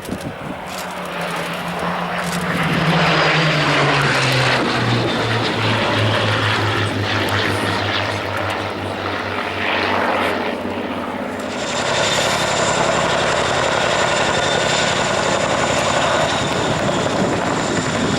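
A propeller-driven aircraft flies past, its engine note falling steadily in pitch as it goes by. About twelve seconds in, the sound switches abruptly to a Chinook helicopter running, with a high steady turbine whine over the noise of its rotors.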